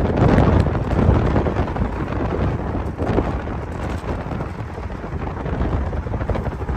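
Wind buffeting the microphone: a loud, uneven low rumble of rushing air.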